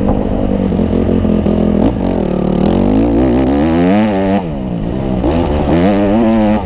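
Motocross bike engine recorded by an onboard camera, the rider working the throttle: the engine pitch rises and falls several times as it revs up and backs off. About four and a half seconds in, the level dips briefly as the throttle closes.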